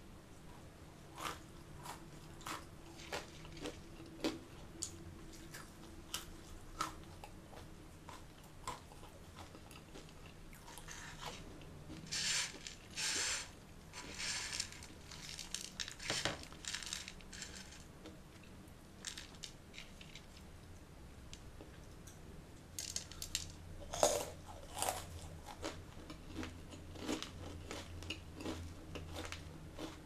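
Close-miked crunchy chewing of Indian namkeen mixture (fried lentils, peanuts and sev), with many short sharp crunches and a denser spell of crackling around the middle.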